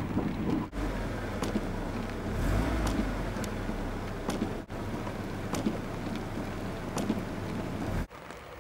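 Rain falling, with individual drops pattering into a puddle and onto wet gravel, over a low rumble in the first half.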